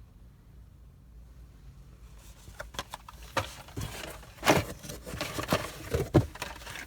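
Packaged diecast toy cars being handled: plastic blister packs and card backings rustling, crinkling and clicking against each other. It is quiet for the first couple of seconds, then a string of sharp clicks and rustles follows, loudest near the end.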